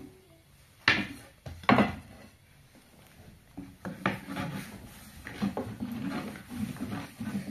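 Two sharp wooden knocks a little under a second apart, then a run of lighter, irregular clatter and rubbing of cookware and utensils being handled.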